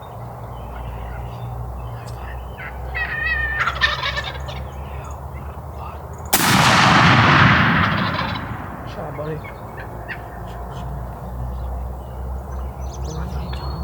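Male wild turkeys gobbling at close range. A rattling gobble comes about three seconds in, and a much louder, longer burst of gobbling starts suddenly past the middle and fades over a couple of seconds.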